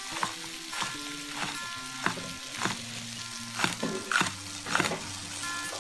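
Chinese cleaver chopping green and red chilli peppers on a thick wooden chopping board, a steady knock about every half second. Faint background music with held notes underneath.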